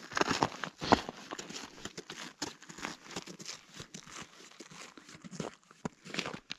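Irregular crunching and scraping on snow and ice, with a sharp knock about a second in.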